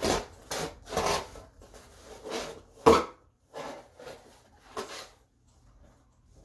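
A knife sawing through the side of a corrugated cardboard box in a series of short, irregular strokes, with one loud thump about three seconds in.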